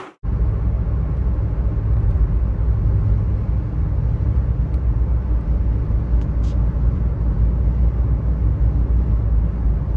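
Steady low rumble of a car driving: road and engine noise, starting abruptly just after a brief drop to silence.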